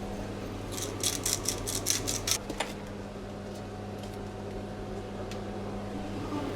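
Steady low electrical hum, with a quick run of sharp clicks and rattles about a second in.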